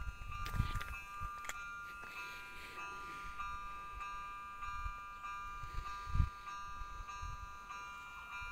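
A level-crossing warning chime sounding continuously as a cluster of steady high ringing tones, warning of an approaching train. Low thumps of wind buffet the microphone.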